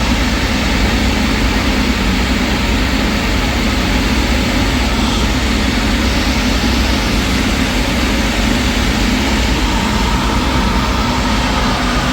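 Heavy machinery or an engine running steadily with a constant low rumble, unchanging in level.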